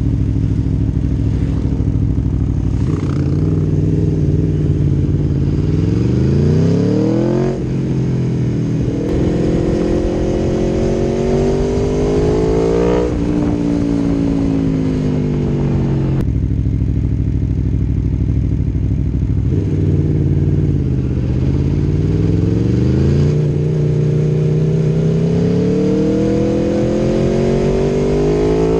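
Aprilia Tuono V4 1100's V4 engine through an Akrapovic exhaust, revving up through the gears: the engine note climbs, drops sharply at each upshift and climbs again, with steady running and easing off between the pulls.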